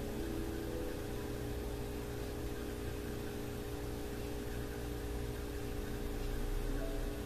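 Steady mechanical hum with an even hiss underneath, holding level throughout, with a couple of faint brief tones near the start and near the end.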